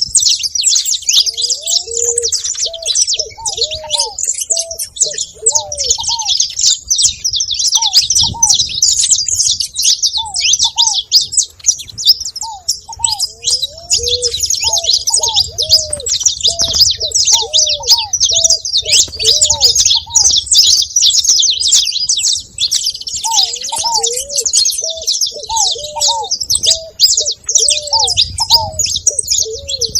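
A flock of saffron finches chirping and chattering nonstop in dense high notes. Ground doves coo underneath in low, repeated phrases of short hooked notes, in three runs: near the start, through the middle and near the end.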